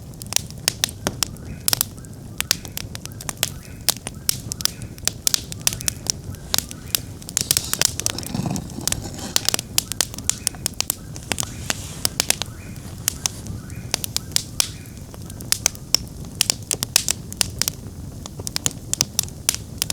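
Campfire crackling, with many sharp, irregular pops over a steady low rush of flame.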